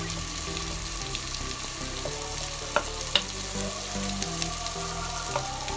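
Oil sizzling steadily in a pressure cooker pot on high flame as ground coriander is spooned into the frying onion and ginger-garlic paste, with two sharp clicks about three seconds in.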